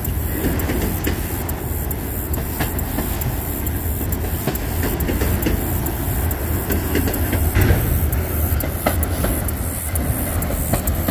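Freight train of bi-level autorack cars rolling past: a steady low rumble of steel wheels on rail with frequent sharp clicks and clacks as the wheels cross rail joints.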